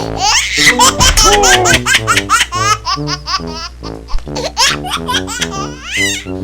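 Laughter over background music with a quick melody of short, choppy notes.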